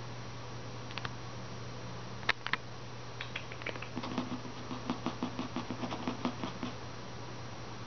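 Persian kittens' paws and claws pattering and clicking on a hardwood floor as they play: a few scattered clicks, then a quick run of light taps lasting a few seconds.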